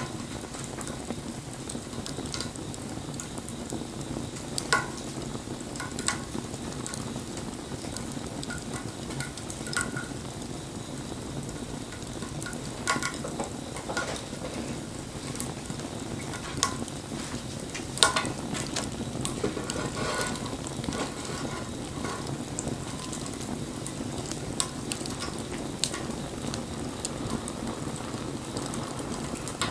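Campfire burning: a steady hiss and rustle of flames with scattered sharp crackles and pops, the loudest about eighteen seconds in.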